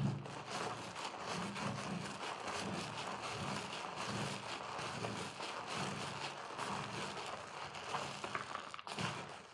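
Hands squeezing and kneading a soap-soaked sponge through thick lather in a basin: continuous wet squelching with a dense patter of tiny pops from the foam, easing briefly near the end.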